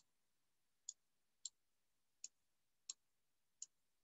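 Computer mouse clicking: six short, sharp single clicks, about three quarters of a second apart, as unit cubes are placed one by one on screen.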